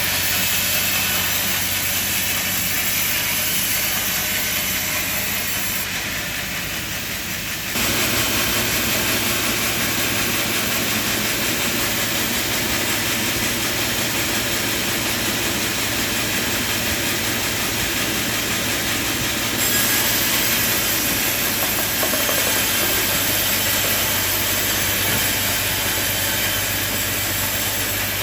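Sawmill machinery running, a continuous hissing noise over a steady low hum, changing abruptly three times.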